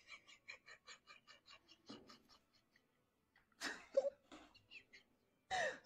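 Cat eating from its bowl: faint, quick, regular clicks, about six a second, that die away after two seconds. About four seconds in comes a short, louder breathy noise.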